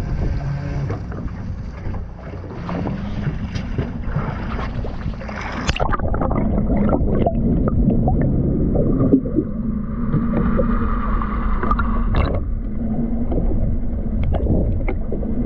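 Boat at sea with a steady low engine hum, water and wind noise. About six seconds in, the sound turns muffled and dull: a steady underwater rumble picked up by a camera in a waterproof housing.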